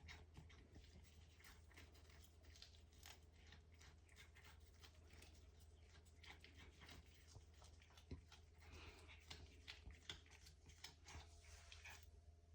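Faint, irregular crunching clicks of a cat chewing a grasshopper, over a low steady hum.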